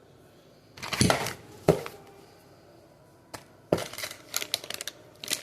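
Hard plastic and metal drill-set parts being handled and set down during unpacking: a couple of sharp knocks, then a quicker run of clicks and small rattles.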